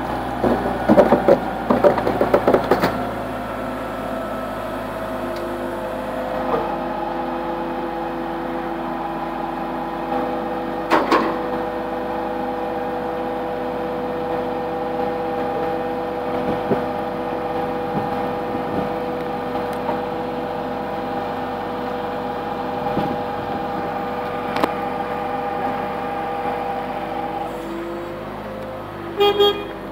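Diesel hydraulic mobile crane running steadily as it hoists a load, a held hum and whine that shifts in pitch about six seconds in. Sharp metal knocks and clanks come in the first few seconds, about eleven seconds in, and again just before the end.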